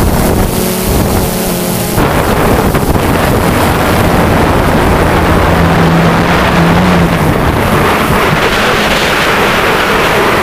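DJI Phantom 2 quadcopter's brushless motors and propellers running steadily in flight, heard from the onboard camera as a loud hum under heavy wind noise on the microphone, the hum strongest about halfway through.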